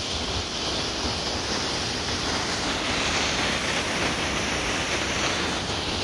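Steady, even rushing of water from a waterfall.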